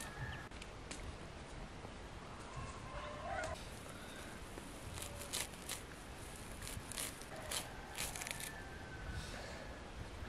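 Fresh herbs being cut from the ground with a small knife: a run of short, sharp snaps and clicks from about five to eight and a half seconds in. Before that, a bird gives a few short calls.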